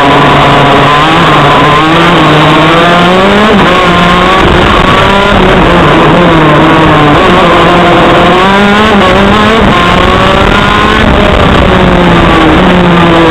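TM KZ10C 125 cc two-stroke shifter kart engine at racing speed, heard from on board the kart, loud. Its pitch climbs and drops back again and again as the driver accelerates, shifts and lifts for corners.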